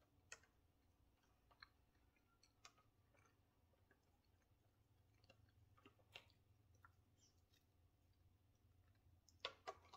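Near silence with a few faint clicks of a metal fork against a clear plastic takeout container and quiet chewing, with a quick run of louder clicks near the end.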